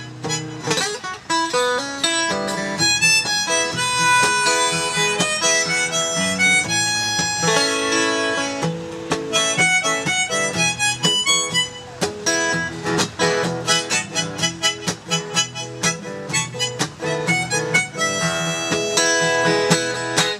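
Harmonica played in a neck rack, taking an instrumental solo of held and bending notes over a steadily strummed acoustic guitar; the music stops abruptly at the end.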